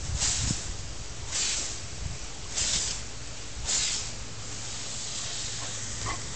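Lawn sprinkler spraying water with a steady hiss that swells four times, about a second apart, as the spray sweeps past, then holds even.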